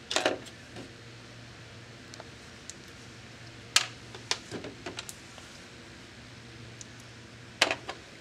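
Small clicks and knocks of plastic parts and hand tools being handled and set down on a workbench: one at the start, a sharp one just under four seconds in with a few smaller taps after it, and another pair near the end, over a steady low hum.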